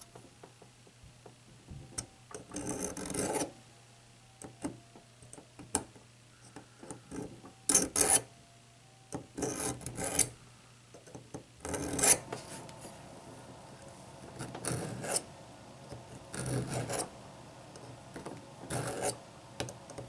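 Pocket knife blade drawn through the carbide slot of a Smith's Pocket Pal sharpener: about seven rasping strokes at uneven intervals, each lasting roughly half a second to a second, with small clicks between them. The carbide is shaving a new edge onto a dull blade.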